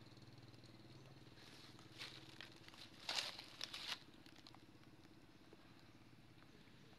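Dry leaf litter rustling and crackling for about two seconds, starting a second and a half in, over a faint steady low hum.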